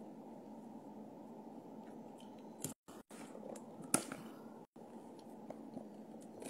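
Faint, steady low room noise with a few small clicks and a sharper knock about four seconds in, as the phone is handled. The sound cuts out completely twice for a moment.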